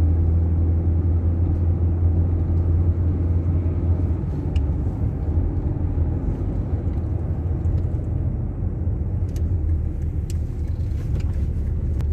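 Car engine and road rumble heard from inside the cabin while driving: a steady low drone, a little quieter from about four seconds in.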